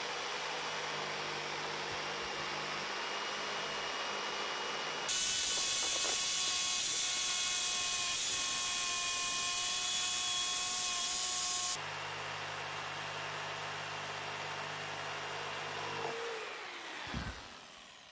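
Bosch corded jigsaw cutting a curve through thick plywood, running steadily, louder and harsher for several seconds in the middle. Near the end the motor is switched off and winds down with a falling whine.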